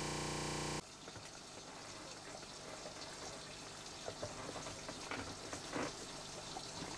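A steady buzzing hum that cuts off suddenly under a second in, then faint crackling with scattered small clicks and rustles.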